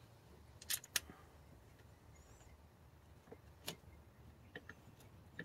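Faint, scattered small clicks and ticks of a tiny No. 4 screw being handled and fitted by hand at the MAF sensor mount on an aftermarket intake housing. Two sharper clicks come about a second in, another a little past the middle, and a few lighter ticks near the end.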